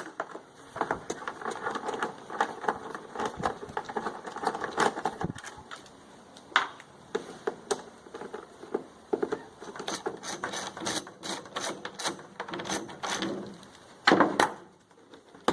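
Screws being taken out of the plastic side cover of a WEN 2350-watt inverter generator: rapid clicking and rattling of the tool working the screws, then scattered clicks and knocks, with a louder clatter near the end.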